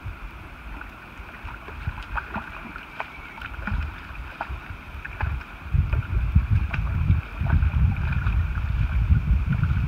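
A hooked softshell turtle splashing at the water surface beside a kayak. From about six seconds in, wind buffets the microphone with a loud low rumble.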